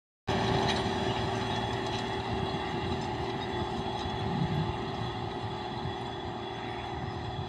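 Belarus MTZ-3022 tractor's diesel engine running steadily under load as it pulls an AKSh-7.2 combined tillage unit through dry soil. The sound fades slowly as the tractor draws away.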